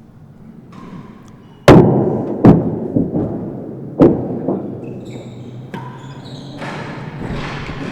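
Real tennis rally: the ball struck by rackets and rebounding off the court's walls, a series of sharp knocks that echo in the enclosed court. The loudest hit comes about a second and a half in, and three more follow over the next few seconds.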